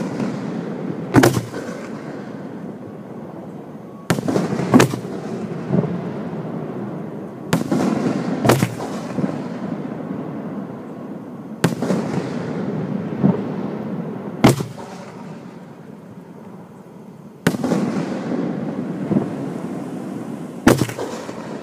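Aerial fireworks shells launching from their mortars and bursting overhead, heard close to the firing site. About a dozen sharp bangs come every second or few, often in pairs, and each is followed by an echoing rumble.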